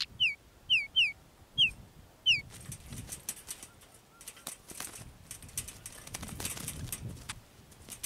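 Oriental magpie-robins: five loud falling whistled calls in the first two and a half seconds, then the trapped bird flapping its wings and struggling against the wire trap, with scattered rustles, clicks and soft thumps.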